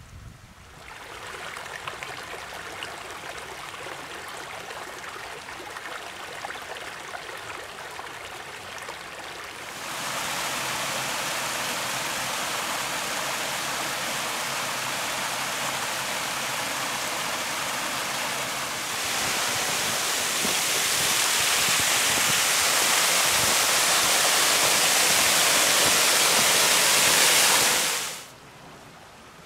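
Small woodland stream spilling over a rock ledge in a little waterfall hung with icicles: a steady rush of running water. It grows louder in two steps, about a third of the way in and again about two-thirds in, and cuts off suddenly near the end.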